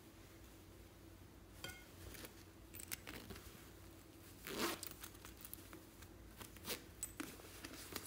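Zipper of a plush fabric backpack being pulled open, with one longer zip about halfway through among short tugs and clicks of the metal pull, then light clicks and rustling as a small plastic tub is handled near the end.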